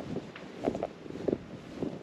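Footsteps crunching through deep snow, a step about every half second, with wind buffeting the microphone.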